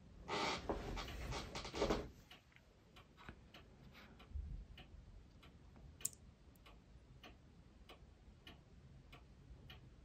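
Steady ticking of a clock, a little under two ticks a second. A louder rustle of handling comes in the first two seconds, and there is a sharp small click about six seconds in.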